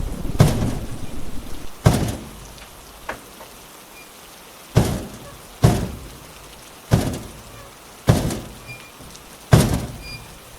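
Steady rain, with a slow series of about eight heavy footstep thuds, each ringing out briefly.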